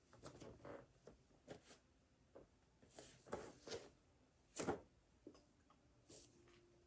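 Soft rustling of clothing and light brushing and knocking sounds of a person moving through full prostration bows. The loudest rustle comes about two-thirds of the way through.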